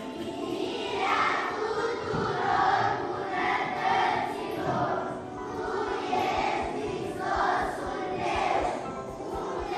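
A group of children singing together as a choir, the sound swelling and easing about once a second with the phrasing.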